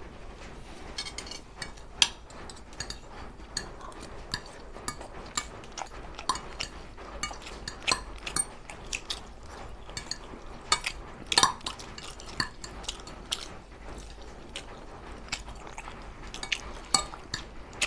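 Two people eating plates of pasta at speed: irregular clinks and taps of cutlery on plates, with chewing sounds.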